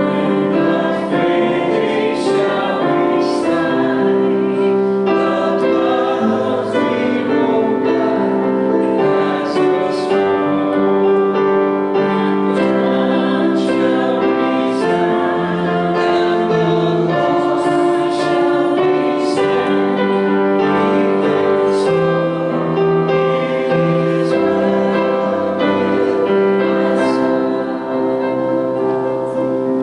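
Slow sacred music: a choir singing held notes over piano accompaniment.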